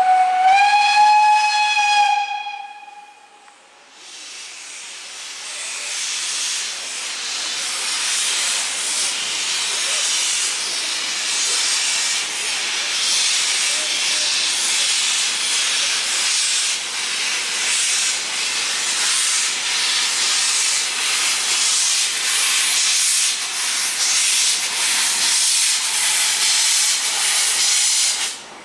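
Steam locomotive Tubize 2069 gives one whistle blast of about two seconds, its pitch rising slightly at the start. After a short lull, a steady hiss of escaping steam builds up and runs for over twenty seconds, then cuts off suddenly near the end.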